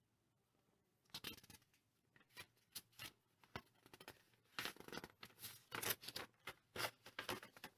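Paper instruction leaflet crinkling and crackling as it is unfolded by hand, a run of short rustles starting about a second in.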